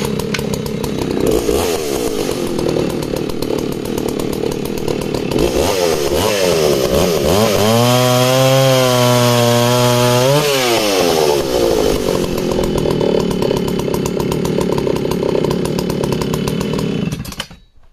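1970s Alpina 90cc two-stroke chainsaw running at high revs, then making a small test cut: about six seconds in the engine note drops as the chain bites into the log, holds low and steady through the cut, and climbs again sharply as the bar clears the wood. It runs on for several seconds more and cuts off near the end.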